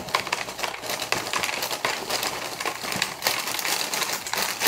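Toast Crunch cereal squares poured from the box's plastic liner bag into a plastic bowl: a dense, steady rattle of many small pieces landing, with the plastic bag crinkling.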